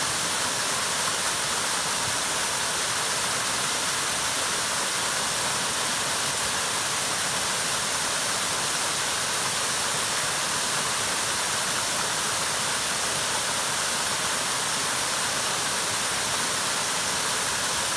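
Waterfall cascading over rock ledges into a shallow pool: a steady, even rush of falling water.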